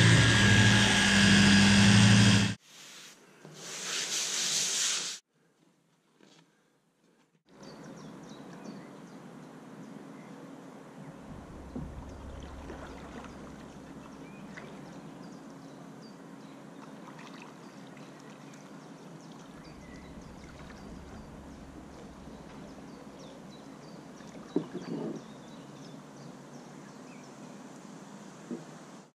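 A random orbital sander runs loudly on the painted plywood canoe hull for the first couple of seconds and stops. After a short pause comes a quiet, steady sound of river water lapping as the canoe is paddled, with a couple of sharp knocks near the end.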